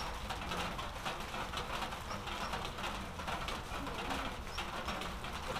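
Light rain pattering steadily, with a few short bird calls now and then.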